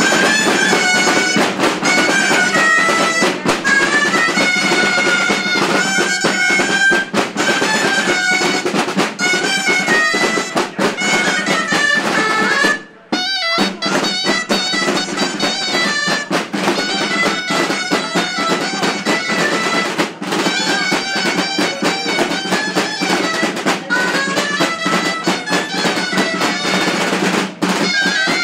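A dulzaina (Aragonese double-reed shawm) plays a folk melody over two rope-tensioned snare drums beating a dense rhythm. The music breaks off for a moment about thirteen seconds in, then carries on.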